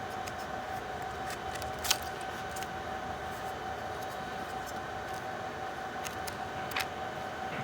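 A steady high-pitched electrical whine over faint hiss, with two short sharp clicks, about two seconds in and near the end.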